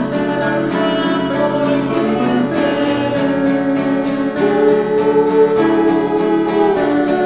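A song: singing voices over guitar, with one long held note in the second half.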